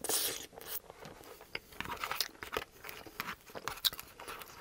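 Close-miked eating sounds: a forkful of sauce-soaked fries is taken into the mouth and chewed, with short clicks and scrapes from a metal fork in a cardboard fries box. One sharp click, the loudest sound, comes just before four seconds in.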